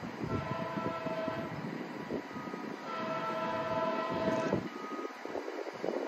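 Train horn sounding a chord of several notes in separate blasts: one about a third of a second in, a longer one of about a second and a half near the middle, and a short one at the end. A low, uneven rumble runs underneath.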